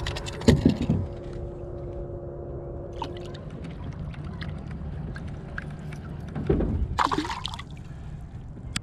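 Lake water sloshing and splashing as a bass is lowered into the water by hand and released, with louder splashes about half a second in and again about two-thirds of the way through.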